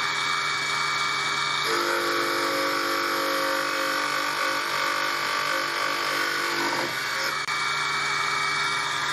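Grinder spindle running a white cup grinding wheel with a steady whine. From about two seconds in until about seven seconds in, a lathe tool bit is pressed against the wheel face to grind its side clearance, adding a grinding sound over the whine.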